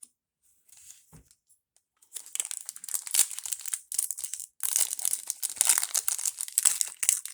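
Foil trading-card pack wrapper being crinkled and torn open by hand. A few small clicks come first, then dense, continuous crackling starts about two seconds in, with one brief pause.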